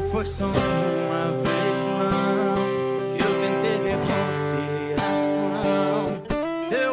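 Background bachata music led by plucked and strummed guitar, with notes plucked at a steady beat.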